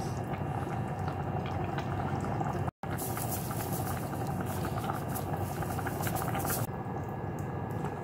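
Bean sprout soup boiling in a stainless steel pot: a steady bubbling and crackling. It breaks off for a moment just before three seconds in, then carries on.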